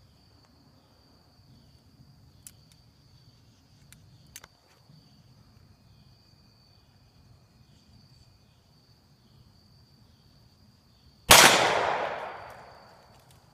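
A single .44 Magnum shot from a Ruger Blackhawk revolver, about eleven seconds in, sharp and loud, with a long tail that fades over about two seconds. Before it, insects chirr steadily, with a few faint clicks.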